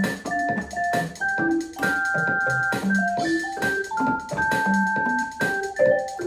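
Electronic keyboard music: a simple bright melody of short and held notes over low bass notes, with a steady beat.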